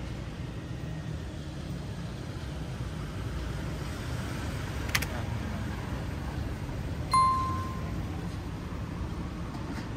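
Steady low rumble of street traffic. A sharp click comes about halfway through, and a single ringing metallic ding a couple of seconds later fades away in under a second.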